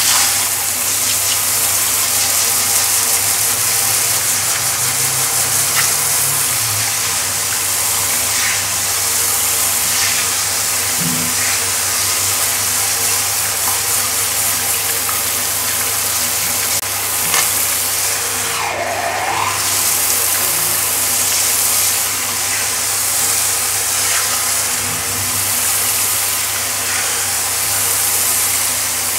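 Water spraying steadily from a handheld shower brush onto a tiled floor: a continuous, even hiss of shower spray.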